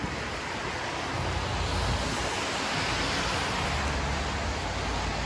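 Steady rain with tyres hissing on the wet road as cars and a van drive through; the hiss swells to its loudest about halfway through and eases off, over a low rumble.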